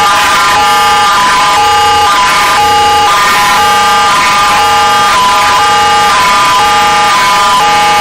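Electronic emergency alert alarm: a loud, harsh chord of many steady tones that flips back and forth between two patterns every half second.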